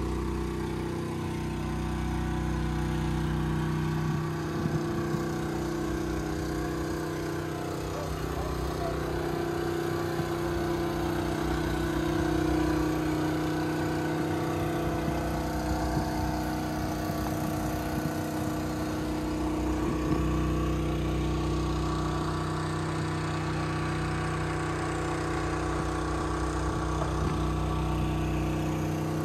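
Yanmar 4JH-45 four-cylinder marine diesel running steadily at a constant speed, a low, even hum with no change in pitch.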